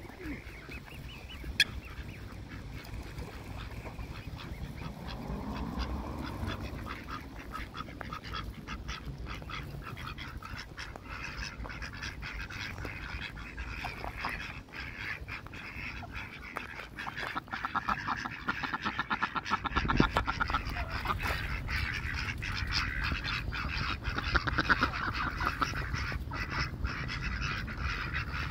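Ducks quacking, with several rapid runs of quacks in the second half.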